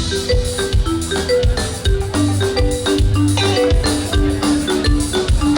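Upbeat instrumental dance music: a bouncing riff of short, mallet-like notes over a steady kick-drum beat.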